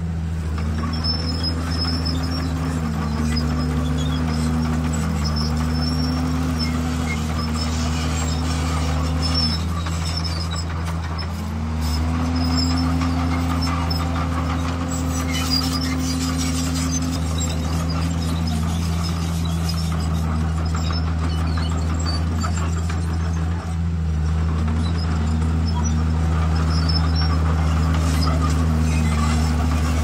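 Bulldozer diesel engine running under working load: a steady low drone, with a higher engine note that repeatedly rises, holds for a second or more and drops back as the load changes.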